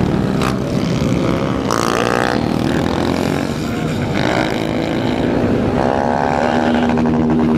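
Several motorcycle engines running close by, idling with revs rising three times, about two seconds apart. A sharp click comes about half a second in.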